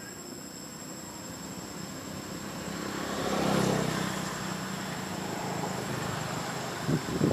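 A passing motor vehicle's engine grows louder to a peak about three and a half seconds in, then slowly fades, over a steady high insect trilling. A couple of short low thumps come near the end.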